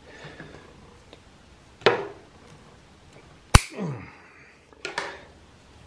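Sharp clicks from hand tools and cable being handled, the loudest a crisp snip about three and a half seconds in as the excess plastic zip-tie tail is cut off, followed by a short scraping sound.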